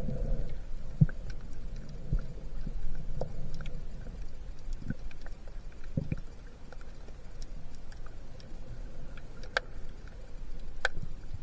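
Underwater sound picked up by a submerged camera: a muffled low rumble of moving water with scattered small clicks and ticks, two sharper clicks near the end.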